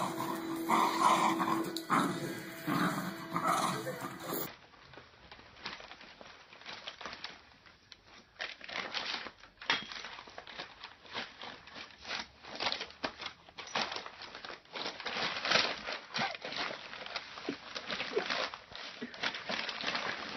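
Plastic bag crinkling and rustling in quick, irregular crackles as a large black dog noses into it. For the first few seconds, music with voices plays over it before it cuts off.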